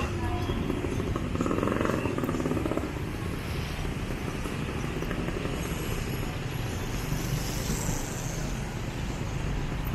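Busy city street traffic: a steady wash of cars and motorbikes running past, a little louder in the first couple of seconds.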